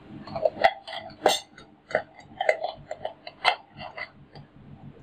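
A metal spoon clinking against steel bowls and a steel plate: a dozen or so irregular ringing taps.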